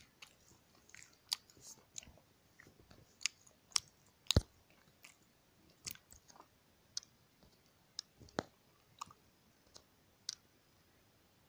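Irregular faint clicks and taps, a couple of dozen scattered throughout. The sharpest comes about four seconds in, and a duller knock comes about eight seconds in.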